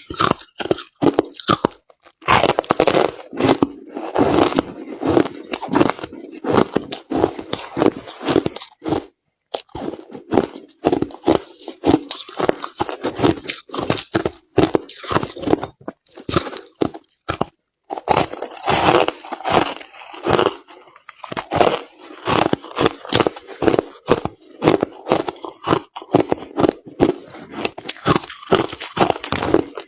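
Close-up chewing and crunching of crushed ice, a dense run of sharp, irregular crackles with a few brief pauses between mouthfuls.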